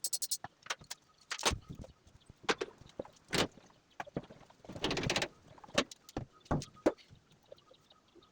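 Irregular clicks, knocks and clatter of hand tools and washing-machine parts being handled during disassembly, with a short scraping rush about five seconds in.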